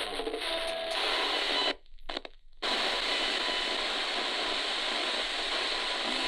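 Spirit box radio scanner sweeping through the FM band: a steady hiss of static with short snatches of station sound in the first second, cutting out briefly about two seconds in.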